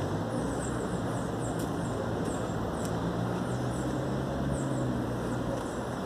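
Street traffic noise with a vehicle engine's low, steady hum, and short high chirps repeating every second or so.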